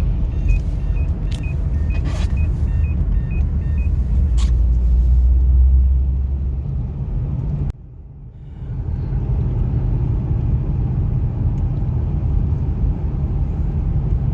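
Cabin noise of a Kia Sorento XM with the 2.4 petrol engine on the move: a steady low rumble from road and engine. A row of short electronic beeps runs through the first few seconds, and a few sharp knocks come in the first half. The sound drops away abruptly about eight seconds in, then the rumble returns.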